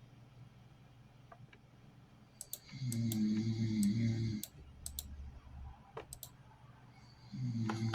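A person snoring while asleep in a chair: one long snore a few seconds in and another starting near the end, each lasting about a second and a half, with several sharp clicks around the first snore.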